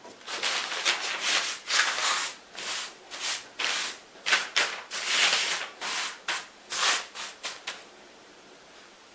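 A bare hand sweeping dusting flour across newspaper in quick repeated strokes, a dry rubbing swish of palm on paper, about two a second. The strokes stop about eight seconds in.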